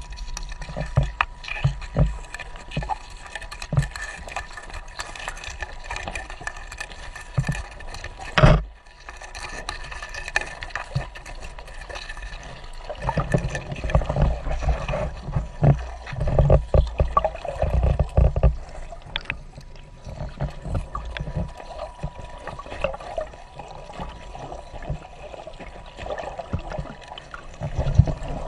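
Water splashing and trickling, with scattered knocks and thumps throughout and one loud sharp knock about eight and a half seconds in.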